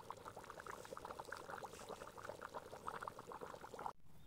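Stew boiling hard in a pot: a dense, irregular run of small bubbles popping, which cuts off abruptly near the end.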